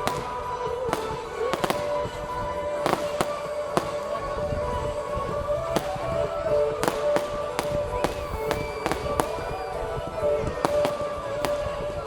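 Fireworks display: exploding firework shells giving sharp bangs at irregular intervals, a few a second at times.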